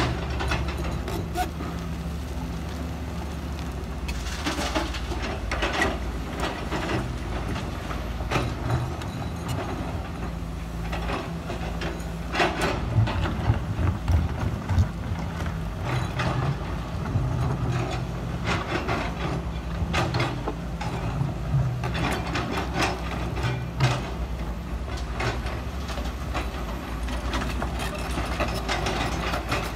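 Sumitomo SH210 hydraulic excavator's diesel engine running steadily while it digs and loads, with scattered knocks and clatter of stony laterite soil scraped into the bucket and dumped into a dump truck's bed, thickest around the middle.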